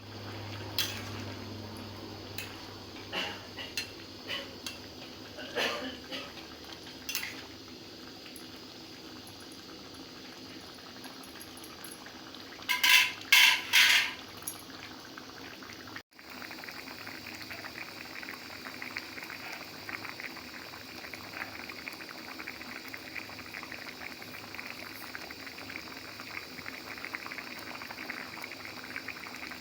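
Eggplant curry cooking in a pan: a steady bubbling, sizzling hiss, with a utensil clinking against the pan now and then and a short burst of loud clatter about thirteen seconds in. After an abrupt break about sixteen seconds in, the pan sizzles on with a denser, steady crackle.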